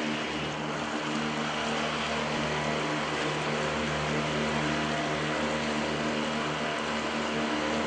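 A small boat's motor running steadily at an even speed, with the rush of water and hull noise under it.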